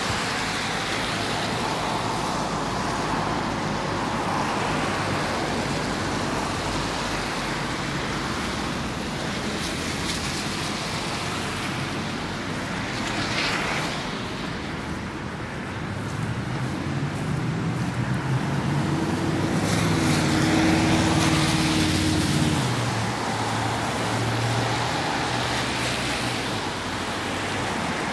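Road traffic on a wet street: a steady hiss of tyres on wet tarmac, with a vehicle's engine hum passing close by, loudest about two-thirds of the way through.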